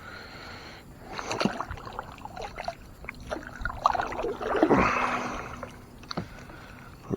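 Knocks, clicks and water noise from an angler moving and handling gear in a fishing kayak, with a swell of splashing about five seconds in.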